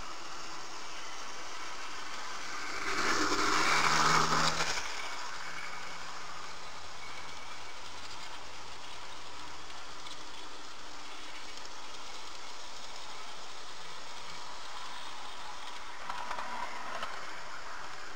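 H0-scale model train with BN F45 diesel locomotives running on track: a steady whir and rolling noise, louder for about two seconds as it passes close by about three seconds in, and swelling again near the end.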